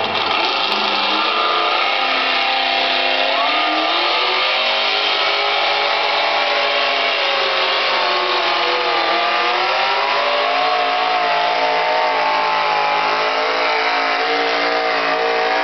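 Modified pulling tractor's engine at full throttle hauling a sled down the dirt track, its pitch climbing over the first couple of seconds, then dipping and recovering twice under the load.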